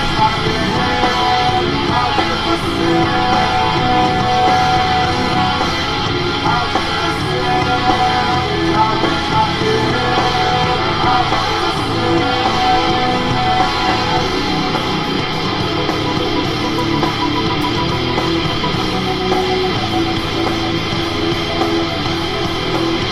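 Rock music with guitars and singing, loud and steady throughout.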